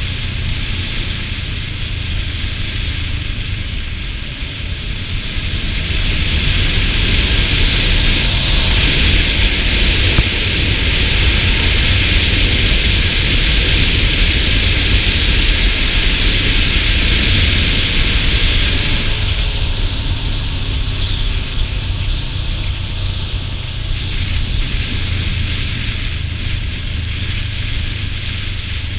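Motorcycle at road speed: wind rushing over the microphone on top of the low drone of the engine, louder through the middle stretch.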